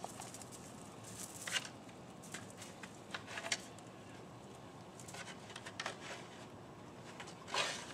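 A young Staffordshire bull terrier scuffling and scratching at a wooden fence with her paws: short scrapes every second or two, the strongest near the end.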